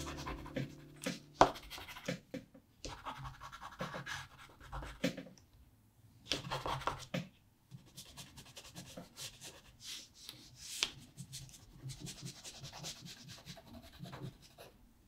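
Neocolor II wax pastel crayon scratching across textured watercolour paper in irregular short strokes, with a couple of sharp taps.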